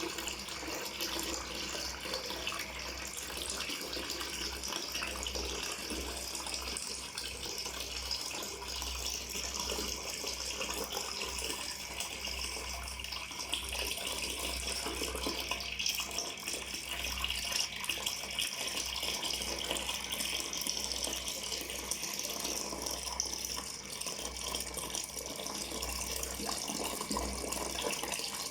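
Water pouring in a steady, continuous stream, splashing without a break.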